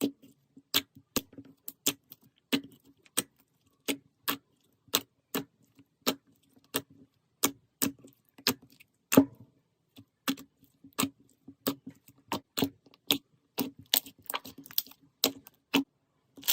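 Slime being pressed and worked by hand, giving sharp clicks and pops about two to three times a second.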